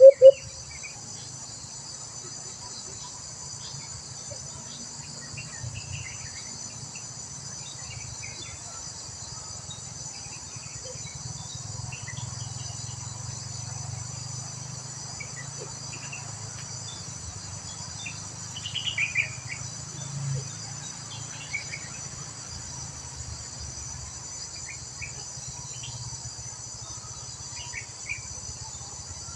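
Steady chorus of insects, a continuous high buzz, with scattered short chirps and a brief rapid pulsing series about two-thirds through.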